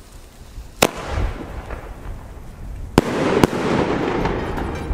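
Funke Iskra Line 'Siemanko Sredni' 30 mm single-shot firework shell: a sharp launch report about a second in, then the shell bursting with a bang about three seconds in. A second crack follows half a second later, and a noisy tail dies away after it.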